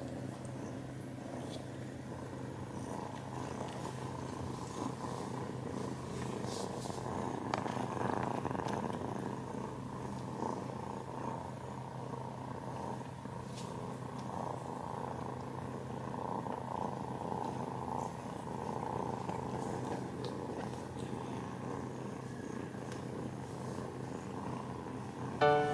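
Cats purring, a steady continuous rumble. Music comes in at the very end.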